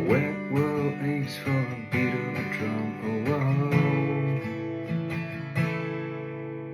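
Acoustic guitar strumming chords, ending on a last chord that rings out and fades.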